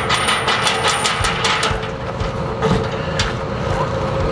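Quick metallic clicking of bolts and hardware being handled against the steel shelter panels, about five clicks a second, stopping about a second and a half in, with one more click near three seconds. A steady low rumble runs underneath.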